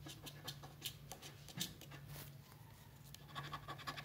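Fingernail scratching the coating off a scratch-off lottery ticket. Scattered scratches in the first two seconds, then rapid scratching starts about three seconds in.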